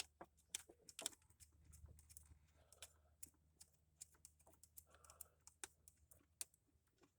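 Faint, scattered light clicks and taps, irregular and with no steady rhythm: a tool working the retaining screw as the new camshaft sensor is screwed in.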